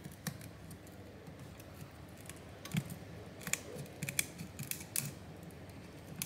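Thin metal pry tool clicking and scraping against the edge of an iPhone 14's glass and frame as the glass is pried up: a scatter of small, irregular clicks, busiest from about three to five seconds in.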